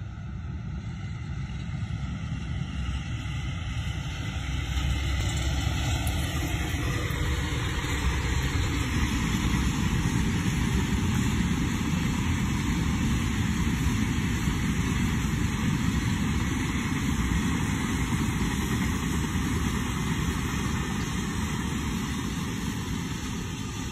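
Freight train of container wagons passing across open fields: a long, steady rumble that swells a few seconds in, holds, and begins to fade near the end.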